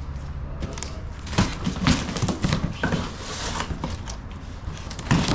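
A large cardboard shipping box being opened and handled: irregular knocks and clicks of the cardboard flaps and contents, with a stretch of scraping and rustling about three seconds in.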